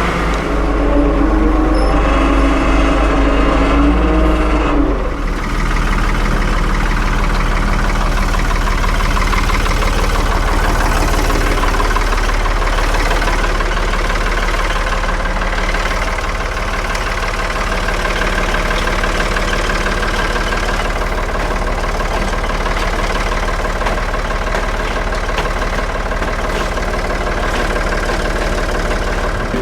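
1975 Ford 550 tractor's engine running steadily, freshly jump-started after sitting about four weeks with a dead battery. A higher-pitched part of the sound drops away about five seconds in.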